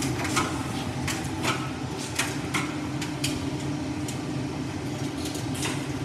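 Miele PT 5136 tumble dryer running with its door shut: a steady low hum from the motor and turning drum, with irregular light clicks every half second to a second.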